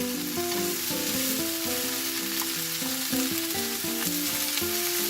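Spicy chicken feet in sauce sizzling in a frying pan, with a steady hiss. Background music plays a melody of short held notes over it.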